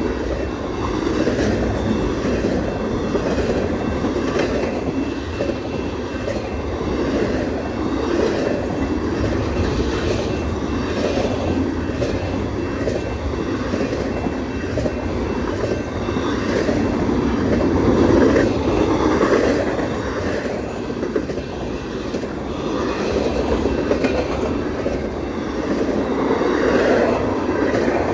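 Freight cars of a BNSF intermodal train rolling past in a steady rumble, their wheels clacking over the rail joints.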